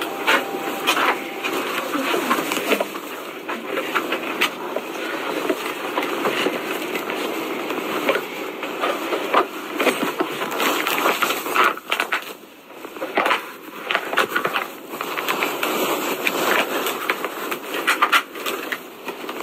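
Footsteps and rustling handling noise from a person walking while holding a phone, with irregular clicks and knocks.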